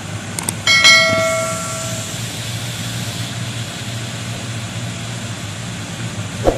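A bright bell-like ding that rings out and fades over about a second, the notification-bell sound effect of a subscribe-button animation. A steady low hum sits under it throughout.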